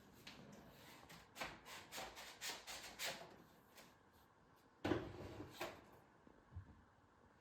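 Light handling noises: a string of soft taps and rubs, then a louder knock about five seconds in, as objects are moved about on a hard surface.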